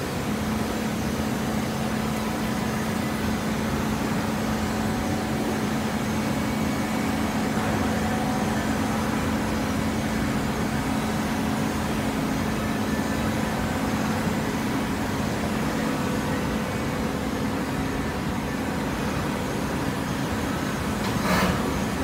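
Horizontal hydraulic baler running, a steady mechanical hum. A brief sharp noise sounds near the end.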